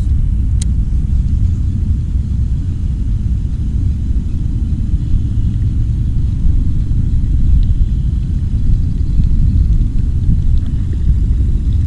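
Wind buffeting the camera microphone: a steady, loud low rumble, with one brief click about half a second in.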